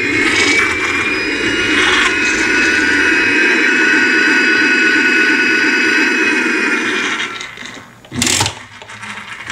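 A toy airplane's electronic jet-engine sound effect through its small speaker: a whine that rises, then holds steady over a hiss, fading out about seven seconds in. A short sharp knock follows about eight seconds in.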